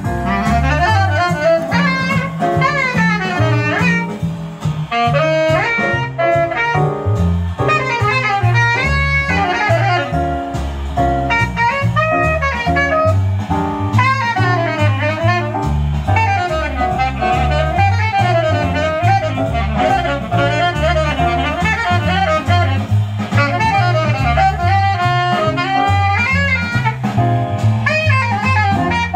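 A jazz recording playing over loudspeakers: a saxophone running fast, winding lines over a steady bass line and drums. It comes through 1960s Altec Lansing alnico speakers driven by a Philips vacuum-tube amplifier.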